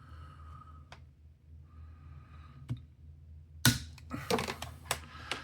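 Automatic wire stripper's built-in cutter snapping through 10-gauge wire with one sharp crack a little under four seconds in, followed by a quick run of clicks and rattles as the tool and wire are handled. Two fainter clicks come before the cut.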